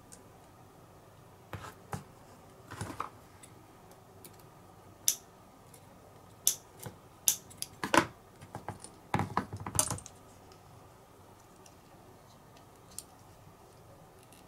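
Scattered light clicks and taps of a metal right-angle pick tool against a small cam lever with a red grip as it is handled, with a denser run of clicks from about eight to ten seconds in.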